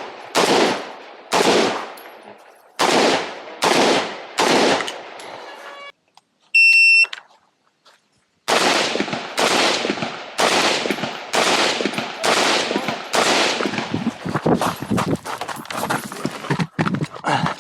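Semi-automatic Saiga .223 (5.56 mm) AK-pattern rifle firing single shots, about one a second, for the first five seconds. A shot timer's start beep follows at the midpoint. About a second and a half after the beep, a rapid string of shots begins and runs on, quickening near the end.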